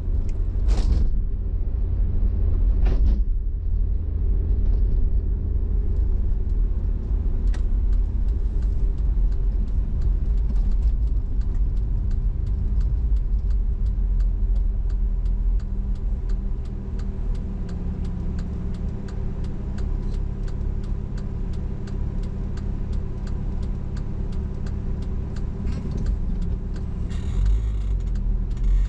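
Car engine and road noise heard from inside the car as it slows to a stop and idles at an intersection, with a turn signal ticking steadily through most of the wait. Near the end the engine picks up as the car pulls away into the turn.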